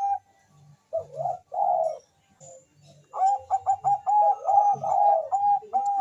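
Zebra dove (Bangkok-type perkutut) cooing: a short pause, two rounded coo notes, then about three seconds in a quick run of short, clipped coos.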